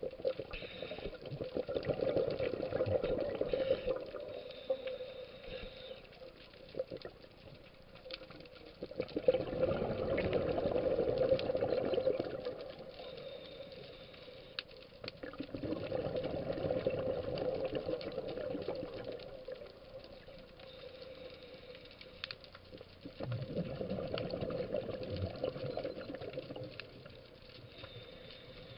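A scuba diver breathing through a regulator underwater: four long rushes of exhaled bubbles, about seven seconds apart, with faint hissing inhalations between them.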